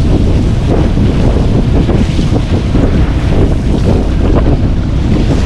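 Strong wind buffeting the microphone on an open boat deck: a loud, steady rumble that gusts up and down.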